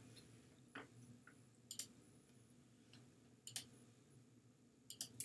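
A handful of faint, scattered computer mouse clicks over near silence, as the screen is switched from a web browser to a slideshow.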